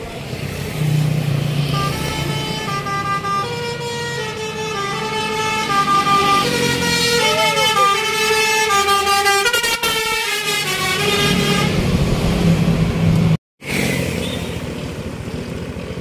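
Tour bus's Basuri telolet horn playing a melody of several held notes at once, stepping up and down in pitch, over the rumble of the passing bus's engine. The sound cuts out briefly near the end and the horn and engine come back.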